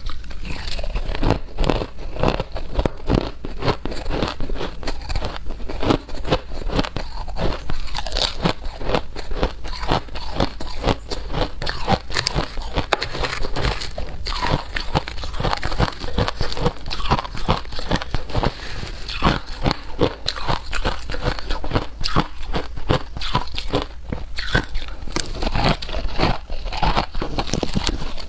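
Ice being bitten and chewed: a continuous run of crisp crunches and cracks, several a second.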